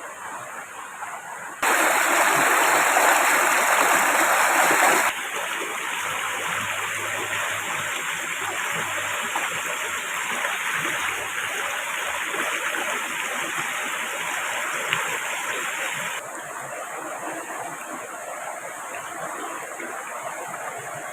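Steady rushing water noise from heavy rain and the river. It jumps suddenly louder about two seconds in, falls back about five seconds in, and drops a little again about sixteen seconds in.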